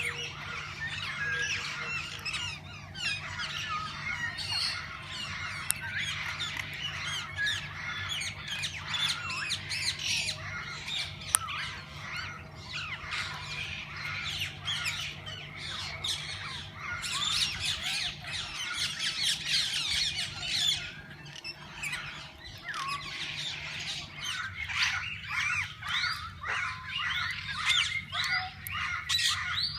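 A flock of parakeets chattering and squawking together, many overlapping shrill chirps at once, busiest in bursts past the middle and near the end.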